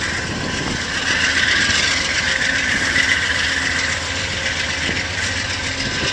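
Amtrak Amfleet passenger coaches rolling past: a steady rumble of wheels on rail with a hissing band above it, a little louder for a couple of seconds about a second in.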